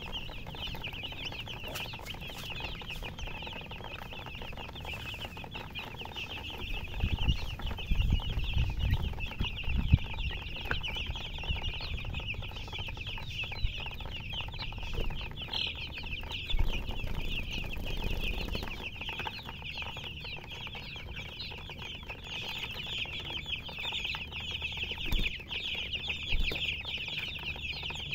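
A brood of chicks peeping without pause, many small high chirps overlapping. Low rumbling knocks come in for a few seconds near the middle.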